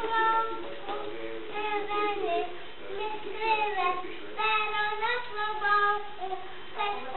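Young children singing a song without accompaniment, in phrases of held notes with short breaks between them.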